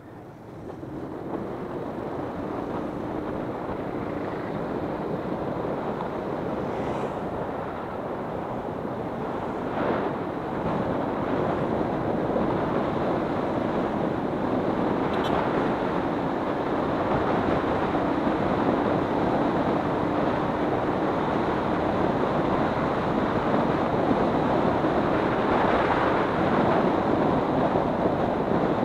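Wind rushing over the microphone while riding a Honda CB125 motorcycle, with the bike's engine running steadily underneath. The rush swells in the first second or two as the bike gathers speed, then holds.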